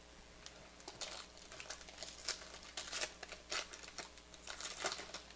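Quiet, irregular crinkling and clicking of trading cards and their packaging being handled and flipped through one by one.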